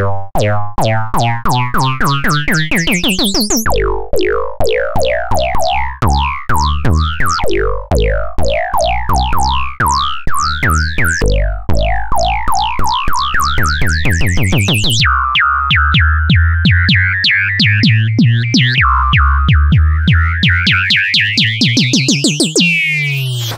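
Oscilloscope music: synthesized electronic tones whose stereo signal draws the shapes on an XY oscilloscope, pulsing quickly with repeated sweeping pitch glides, then changing to a steadier buzzing texture about two-thirds of the way through.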